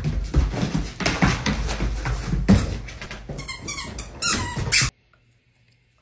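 A dog charging around a room, its paws thumping on the floor in quick succession, with high squeaks near the end. The sound cuts off suddenly about five seconds in.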